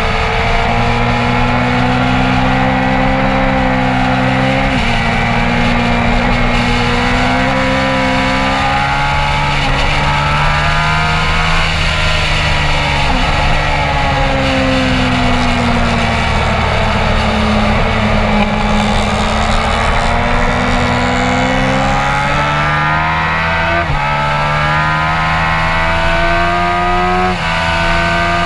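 Onboard sound of a motorcycle engine at racing speed, its revs climbing steadily and dropping sharply at upshifts about 5 seconds in and twice near the end, and easing down for a while mid-way as it slows for a corner, over a constant rush of wind.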